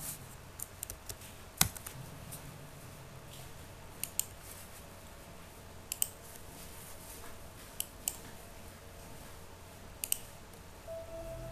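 Computer mouse and keyboard clicks: single sharp clicks spaced irregularly, a second or so apart, over a faint steady background. Just before the end, music from the film opening in VLC starts up.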